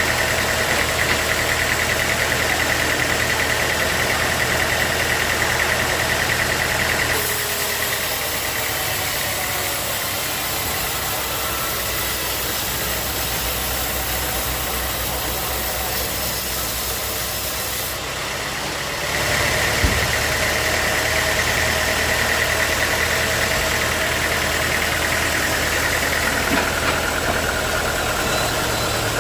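Sawmill engine running steadily, with a high whine over it in the first few seconds and again from about 19 s, while the middle stretch is a little quieter.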